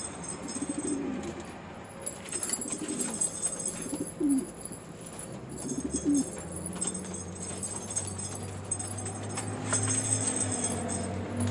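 Domestic pigeons cooing, several low, wavering coos in the first half. A steady low hum comes in about halfway and grows stronger toward the end.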